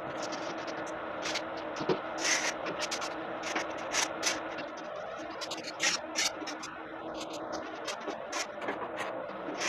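Irregular short scrapes of wet plaster being worked and smoothed into the joint between plaster wall blocks, some strokes louder than others.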